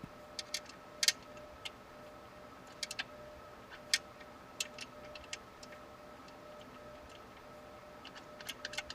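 Scattered sharp clicks of screws and a screwdriver against a computer case and power supply, as the power supply is screwed in, the loudest about a second in and a quick run of them near the end. A faint steady hum runs beneath.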